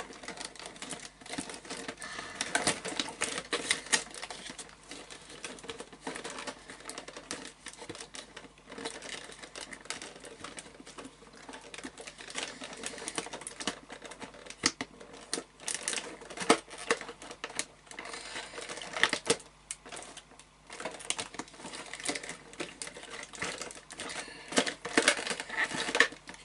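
Small packaging being handled and opened by hand: irregular sharp clicks and taps mixed with light crinkling rustles.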